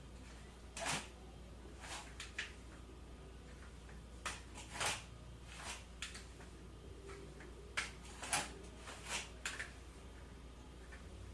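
A series of short, irregular clicks and knocks, about a dozen spread unevenly, like things being handled and set down.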